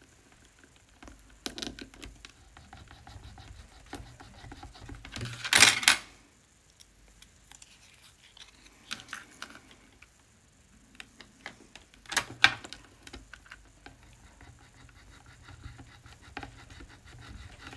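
Handling and folding of paper and cardstock on a craft table: scattered light clicks and taps, with three louder brief swishes about five and a half seconds in, around twelve seconds, and near the end.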